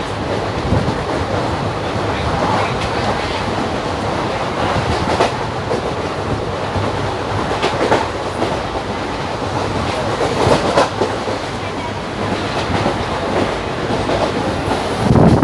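Running noise inside a moving passenger train coach: a steady rumble and rattle, with occasional clacks from the wheels over the rail joints.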